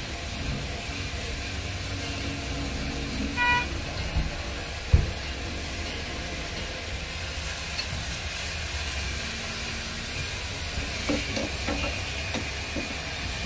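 Steady low rumble of vehicle traffic with a short car horn toot about three and a half seconds in, then one sharp knock a second and a half later and a few faint clicks near the end.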